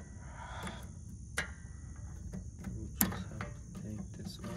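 Hand tools and small metal parts clicking on a truck's rear-axle parking-brake hardware: two sharp clicks about a second and a half apart, with fainter ticks between them. A steady high buzz of crickets runs underneath.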